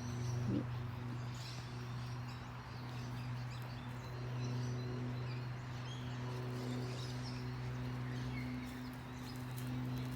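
Outdoor ambience: scattered faint bird chirps over a steady low mechanical hum.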